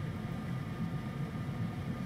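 Steady low-pitched background hum and hiss with a couple of faint, steady high tones, unchanging throughout, typical of a fan or other machine running in the workshop.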